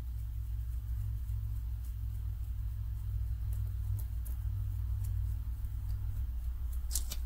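A steady low hum with a few faint light clicks scattered through it, and a slightly sharper click near the end.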